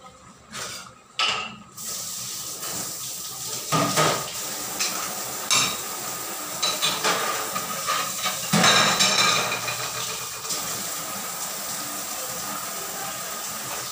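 Pork igado sauce simmering in a lidded wok, in its last simmer after the vinegar has gone in: a steady boiling and sizzling hiss that comes up about two seconds in. Irregular pops and light clinks sound through it.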